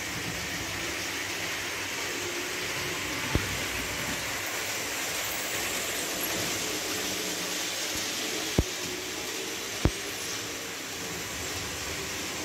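Märklin model trains running on a layout: a steady whirring noise of wheels and motors with a faint hum, broken by three sharp clicks about three, eight and a half and ten seconds in.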